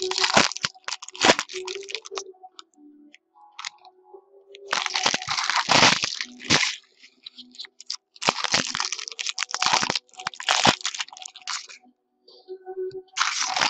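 Foil wrappers on sports card packs being torn open and crumpled, in several crackling bursts of a second or two each, with short pauses between them.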